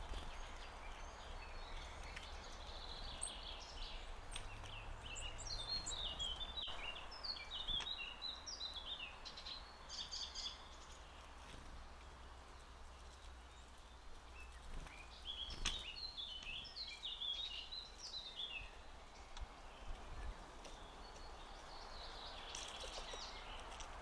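Small songbirds calling in quick runs of high chirped notes, in bouts separated by short lulls, over a steady low hum. A single sharp click comes a little past halfway.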